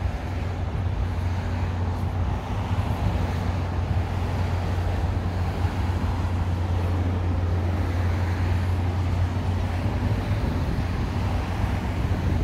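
Steady road traffic noise along a busy city street, with a strong, even low hum and no single standout event.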